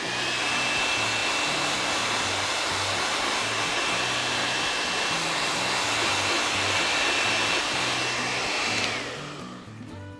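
Handheld hair dryer blowing steadily, with a thin high whine over the rush of air, drying fresh primer on a plastic pot. It is switched off about nine seconds in and winds down.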